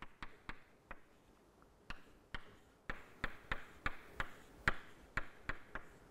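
Chalk tapping and scraping on a blackboard as a formula is written: a run of short sharp taps, with a brief pause about a second in, then quicker taps of about three a second.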